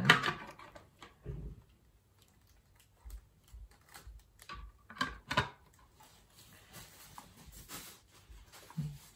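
Hard plastic handling noises as a Lowrance fishfinder's snap-on sun cover is tried over the display: a rustle and knock at the start, a dull thud, sharp clicks about five seconds in, then lighter scraping and tapping.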